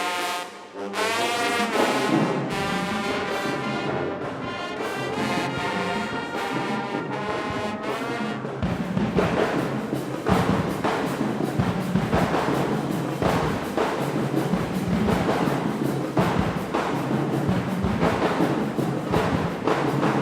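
Marching band brass section playing sustained chords, with drums coming in about eight seconds in and keeping a steady beat under the horns.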